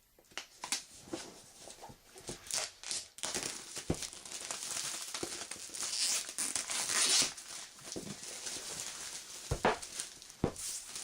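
Plastic shrink wrap crinkling and tearing as it is pulled off a board game box: crackly at first, then a long stretch of dense rustling. Two sharp knocks of the box being handled come near the end.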